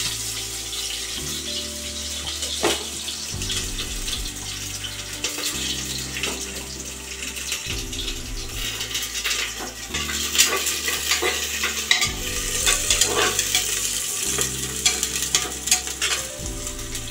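Chopped onion sizzling as it fries in mustard oil in an aluminium pressure cooker, stirred now and then with a steel spatula that scrapes and clinks against the pot.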